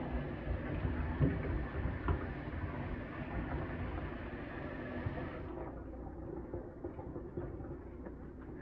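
Kitchen tap running into a pan of cut vegetables in a stainless steel sink, with hands rubbing the pieces and a few light knocks against the pan; the water shuts off about five and a half seconds in.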